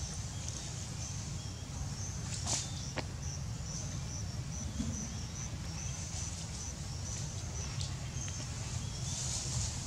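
Outdoor ambience: a steady low rumble, with high-pitched chirps repeating through it. A couple of faint sharp clicks come about two and a half and three seconds in.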